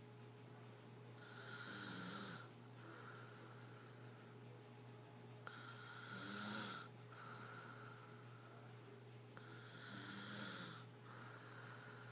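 A girl snoring in her sleep: three loud snores about four seconds apart, with softer breathing between them.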